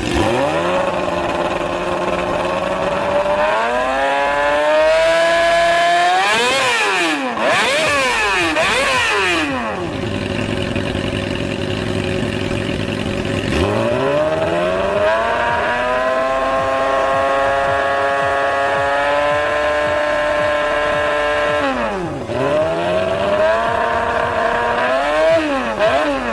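Yamaha R6 inline-four sport bike engine revving and accelerating hard, its pitch climbing in long pulls and dropping sharply several times, with a quick run of rising and falling revs about seven to nine seconds in.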